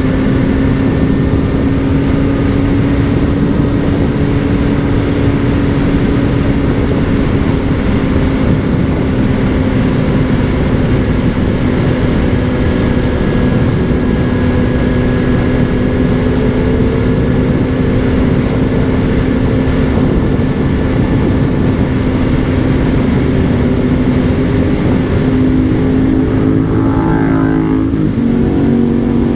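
Kawasaki Z900 inline-four engine running steadily at highway cruising speed, heard from the rider's seat over wind rush. Its note wavers and shifts near the end.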